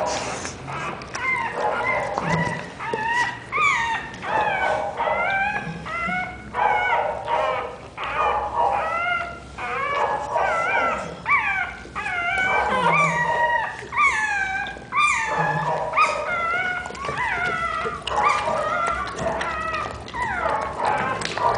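Newborn American Pit Bull Terrier puppies squealing and whimpering over and over: short, high cries that drop in pitch, one after another.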